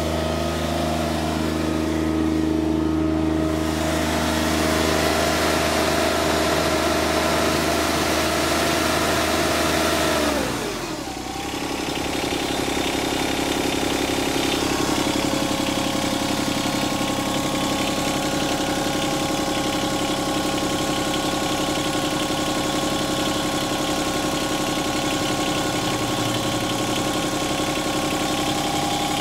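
Yanmar 3TNV70 three-cylinder diesel engine of a 2008 John Deere 2653B mower running at high speed. About ten seconds in it is throttled down and then idles steadily.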